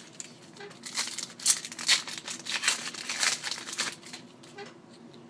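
Trading cards and their packaging being handled, a quick series of papery rustles and crinkles between about one and four seconds in.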